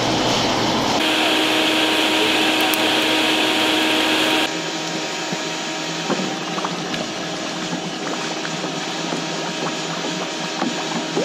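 Forced-air coal forge running steadily, its blower noise with a low hum under it, while the spearhead heats. About four and a half seconds in this gives way to a hot blade being quenched in motor oil: a quieter steady hiss with scattered crackles as the oil flares.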